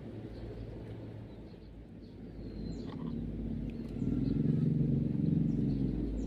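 A low motor hum that grows louder about three seconds in, with short bird chirps above it.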